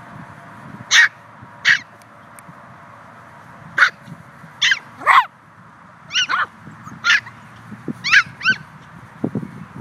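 Maltese puppies yipping and barking as they play, about a dozen short high-pitched yaps scattered through, some in quick pairs.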